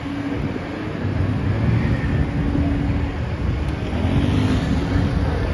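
City street traffic: a steady rumble of passing cars and buses, with a low steady hum for about the first three seconds.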